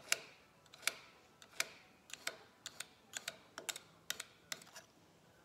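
Skinning knife being touched up on a sharpener: about fourteen short, sharp strokes, wider apart at first and quicker toward the end, stopping shortly before the end.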